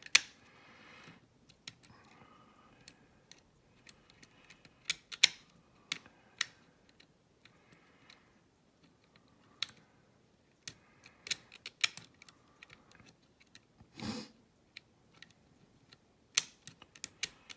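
Pick wire and bent-nail tension tool working the levers inside a Chubb 5-lever mortice lock: irregular small metallic clicks and faint scraping as the levers are probed, with a brief rustle about fourteen seconds in.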